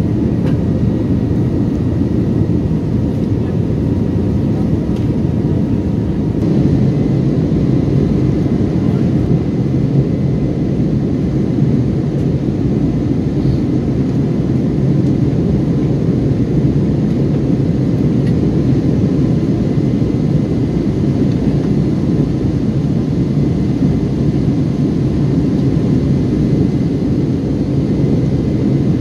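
Steady jet-engine drone and rushing airflow heard inside an airliner's cabin as it climbs after takeoff.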